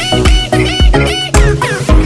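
Upbeat electronic intro music with a strong bass beat about twice a second.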